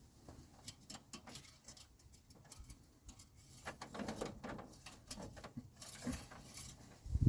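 Scattered light clicks and taps, with a stretch of rustling and scraping a few seconds in: small handling noises.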